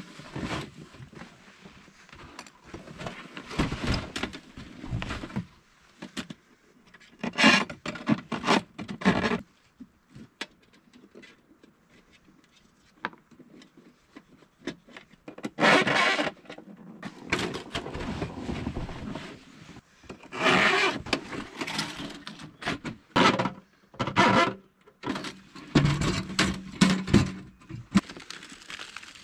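Thin, heat-warped titanium panels of a portable folding wood stove being fitted together by hand: irregular metallic scraping, clicking and clattering in short spells separated by quieter pauses.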